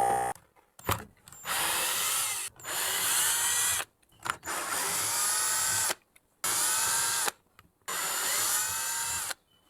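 Cordless drill-driver run in five short bursts, each spinning up with a rising whine, backing out screws from the plastic casing of a Karcher OC3 portable washer. There is a short click about a second in.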